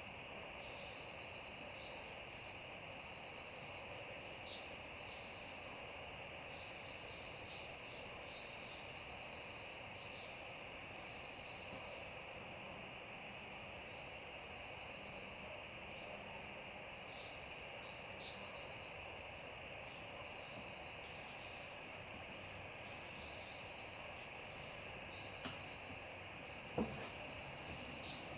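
A steady night chorus of crickets and other insects, several of them chirping and trilling over one another in a constant high drone. A single short tap sounds near the end.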